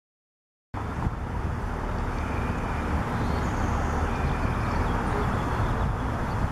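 Outdoor ambience: a steady low rumble of distant road traffic and wind on the microphone, cutting in abruptly about three quarters of a second in.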